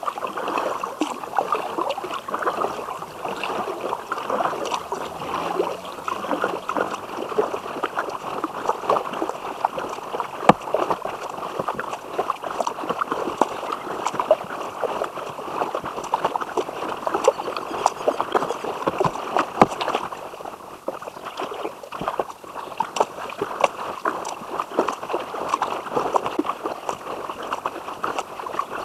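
River water lapping and gurgling against a kayak's hull, with many small splashes and drips throughout.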